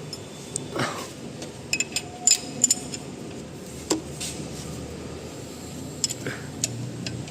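Metal hand tools and engine parts clinking and tapping against each other: a cluster of sharp, ringing clinks about two seconds in, a single knock about four seconds in, and a few more clinks near the end.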